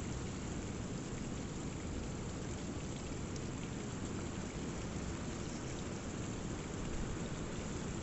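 Rainwater runoff after a heavy storm, running and splashing down a rock cliff onto boulders. Behind it a rough sea keeps up a deep, steady rumble.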